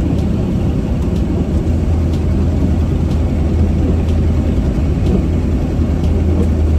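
Twin-turbo LS V8 in a Mazda RX-8 running under steady load with a constant low drone as the car ploughs through deep snow. Faint single ticks come about once a second.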